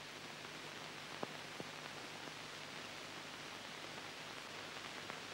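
Steady hiss of an old film soundtrack with a faint low hum, and a couple of faint clicks a little over a second in.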